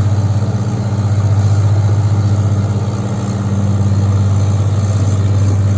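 Diesel engine of an earthmoving machine running steadily, a low even hum with a slight fast pulse.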